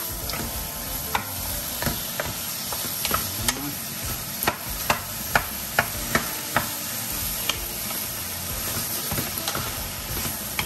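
Diced smoked meat and sliced onion sizzling in a nonstick frying pan while a wooden spatula stirs them, tapping and scraping against the pan. The taps come in a quick run in the middle.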